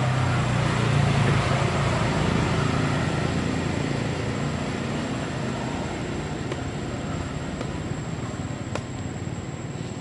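A motor vehicle passing by, its engine hum and rushing noise loudest about a second in and then slowly fading away.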